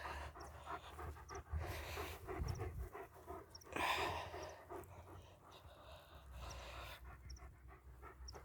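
German Shepherd dog panting, hot after a walk in about 27 °C heat, with a louder stretch of panting about four seconds in.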